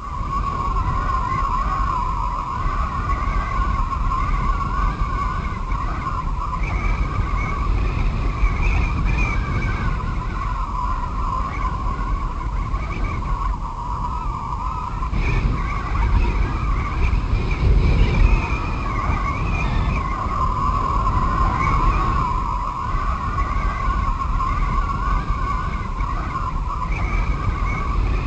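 Howling storm wind: a wavering high whistle over a low rumble.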